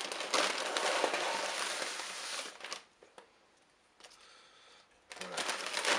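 Paper wrapping rustling and crinkling as hands handle it, for nearly three seconds, then a quiet gap of about two seconds before the rustling starts again near the end.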